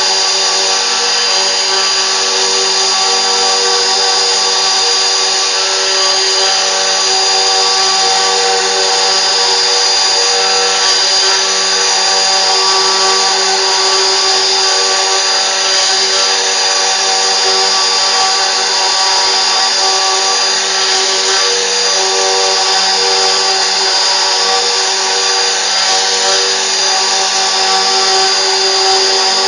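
CNC machine's spindle motor running steadily, a loud continuous mechanical noise with a high whine that holds one pitch throughout.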